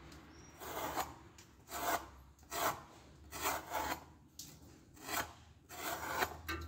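A sharp, heavy knife with a 5 mm spine slicing into a sheet of leather in short strokes, about eight of them spaced under a second apart, showing how keenly the edge cuts.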